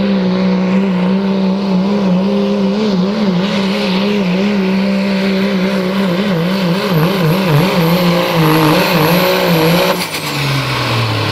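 Dodge Ram pickup's Cummins diesel at full throttle pulling a sled, its engine note steady at first, then wavering harder and harder as the truck bogs and the wheels spin near the end of the pull. About ten seconds in the throttle is cut and the engine note falls away as the pull comes up short.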